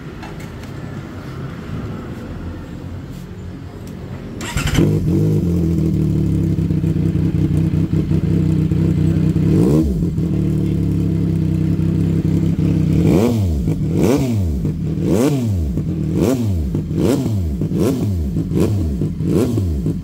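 CFMOTO 675 SR-R's three-cylinder engine running through a titanium aftermarket exhaust for a sound check. It idles, gets suddenly louder about four and a half seconds in, is revved once near the middle, then is blipped repeatedly, about one quick rev a second, toward the end.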